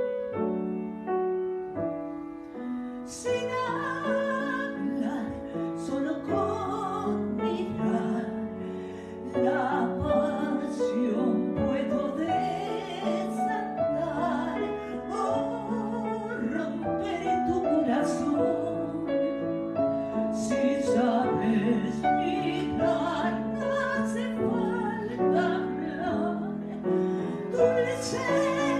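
A woman sings in an operatic, vibrato-rich style over piano and orchestral accompaniment. The accompaniment plays alone at first, and the voice comes in about three seconds in.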